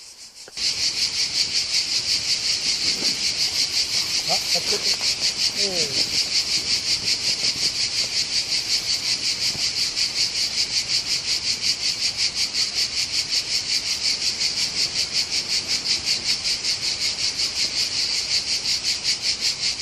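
Cicadas singing in a loud, rhythmic chorus, pulsing at about five times a second; it starts suddenly about half a second in.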